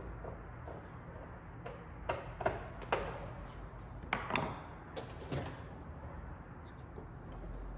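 A scattering of short clicks and knocks from hand tools and small door hardware being handled and set down, in two clusters, about two seconds in and again about four seconds in, over a steady low hum.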